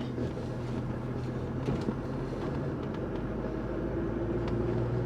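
Ford Mustang SVT Cobra's supercharged 4.6-litre V8 running steadily while the car is driven at a steady pace.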